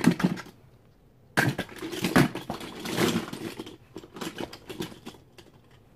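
Small toy cars clattering as they are handled and set down: a sharp knock about a second and a half in, then a run of irregular clicks and knocks that grow lighter.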